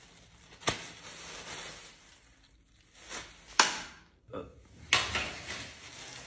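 Thin plastic shopping bag rustling and crinkling as it is handled, in a few short sharp bursts, the loudest about three and a half seconds in.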